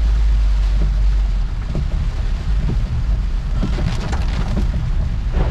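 Heavy rain falling, heard from inside a car: a steady hiss of rain with a deep rumble underneath that is strongest for the first second and a half. There is a short spell of sharper spattering about four seconds in.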